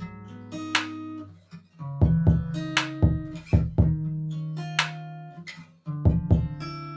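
Background music: plucked guitar notes over sustained bass notes, with a steady beat of drum hits.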